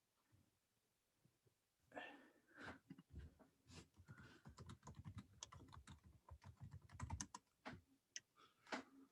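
Faint run of rapid small clicks and taps, starting about two seconds in and densest in the middle.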